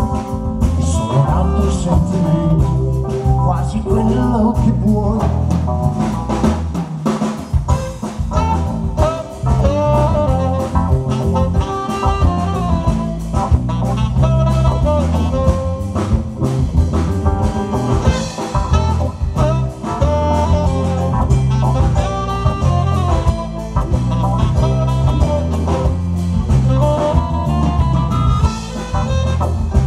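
Live band playing an instrumental passage with saxophone, keyboard, electric guitar and drums, the saxophone at the front.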